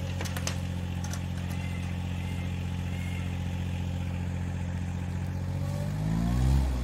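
Engine of the pulling machine running at a steady low speed, with a few sharp clattering knocks about half a second in; the engine revs up briefly near the end.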